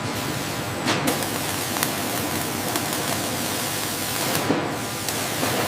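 Steady, even hiss with a few faint clicks in the first two seconds.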